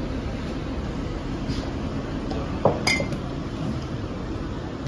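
Glass bottles clinking as they are handled: a quick double clink about three seconds in, with a short ringing tone, over a steady background hum.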